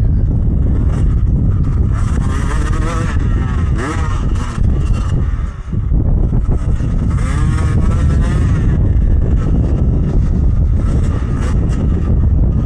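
Beta dirt bike engine running as it is ridden along a trail, its pitch rising and falling with the throttle in two stretches, under heavy wind buffeting on the helmet microphone.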